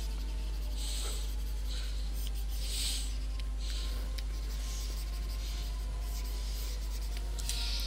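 Stylus drawing on a graphics tablet: a series of short, soft scratchy strokes, roughly one a second, over a steady low hum.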